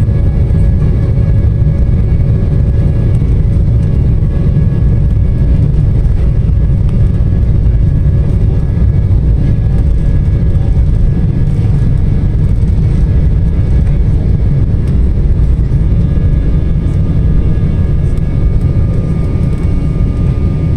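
Embraer E190 takeoff roll heard from inside the cabin: its turbofan engines running at takeoff thrust with a loud, steady low rumble and several faint steady whine tones above it. The rumble eases slightly near the end as the jet rotates and lifts off.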